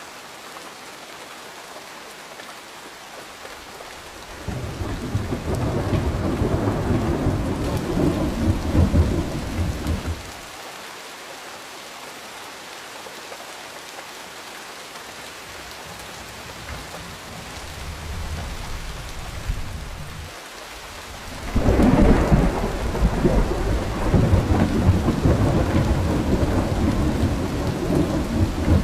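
Steady rain falling, with two long rolls of thunder: the first starts about four seconds in and rumbles for about six seconds, and the second begins about three-quarters of the way through and is still rolling at the end.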